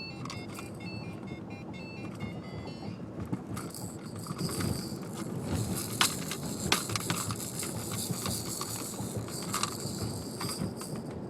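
Steady low road rumble inside a moving car. A toy's electronic tune plays through the first few seconds, then scattered clicks and high jingling follow.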